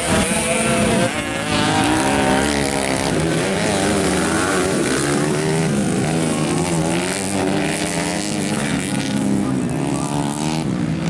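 Several motocross dirt bike engines racing, their pitch rising and falling continuously as the riders open and close the throttle and shift gears.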